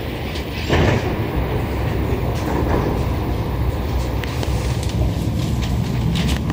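Montreal Metro Azur train car standing at a station platform with a steady low hum. About a second in comes a short rush of noise as the doors open, then scattered light clicks and footsteps as passengers step off.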